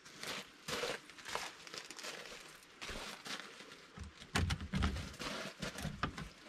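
Handling noise from gloved hands working at an excavator's side panel: irregular rustling and scraping, with a few dull knocks about four seconds in.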